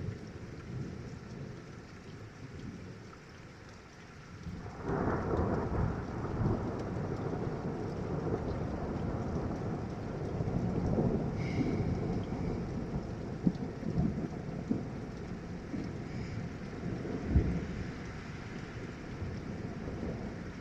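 Steady rain, then about four and a half seconds in a long roll of distant thunder starts and rumbles on for many seconds, with a few sharper cracks in it.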